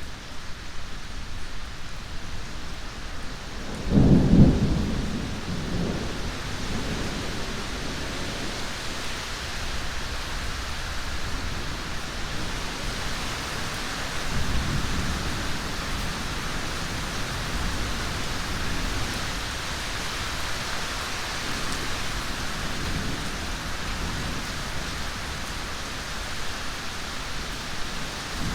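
Thunderstorm: steady rain with a sharp, loud clap of thunder about four seconds in, followed by lower rolling rumbles, one more around the middle.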